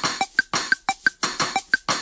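Background music with a fast, steady percussive beat of about six hits a second, with short high electronic blips over it.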